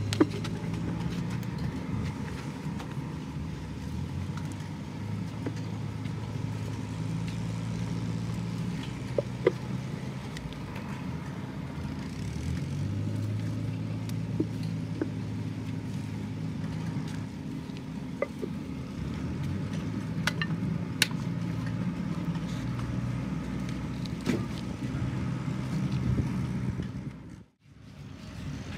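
A motor running steadily with a low hum whose pitch shifts a little now and then, with a few sharp knocks of plaster mould pieces being handled. The sound cuts out briefly near the end.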